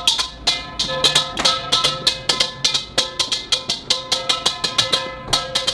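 Stainless steel mixing bowl drummed with a pastry brush: a quick run of rhythmic strikes, about five a second, each leaving a metallic ring.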